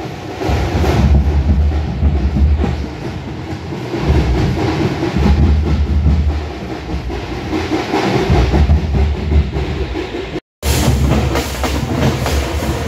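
Loud festival procession drumming with heavy, booming low beats in uneven surges. It drops out for a split second about ten and a half seconds in.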